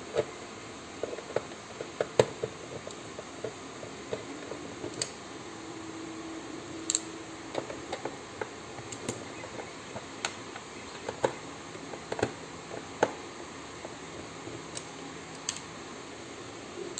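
Irregular light clicks and taps of hard plastic parts being handled and fitted together: the Nerf Stryfe blaster's plastic shell halves, over a steady hiss.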